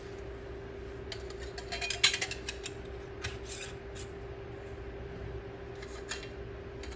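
Metal canning lids and screw bands clinking and scraping against glass Mason jars as they are set on and screwed down, with a run of light clicks from about one to two and a half seconds in and a few more later. A steady low hum runs underneath.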